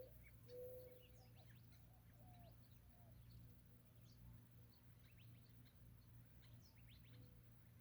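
Faint desert birdsong: a dove cooing with short low notes in the first second, and again softly later, among many small birds giving quick high chirps throughout. A steady low hum lies underneath.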